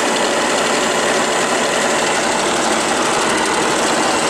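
Electric sewing machine running steadily at full speed with its foot pedal held down, winding thread onto a bobbin on the bobbin winder.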